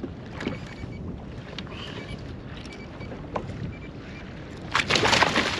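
Low water and wind noise around a fishing kayak, then about 4.7 s in a sudden loud burst of splashing and rapid crackle as a hooked halibut thrashes at the surface beside the hull.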